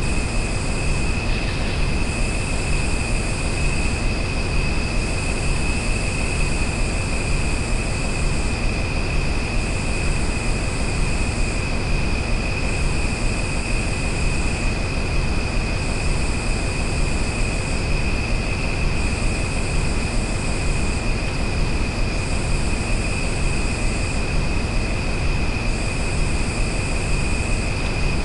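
Nature ambience: a steady rushing noise with a steady high whine over it, and a still higher buzz that pulses on and off about every two seconds.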